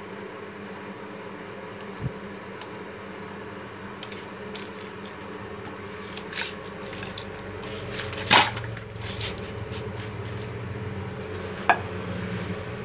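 Metal power saws being handled, lifted and set down: a few scattered metal knocks and clanks, the loudest about eight seconds in, over a steady low hum.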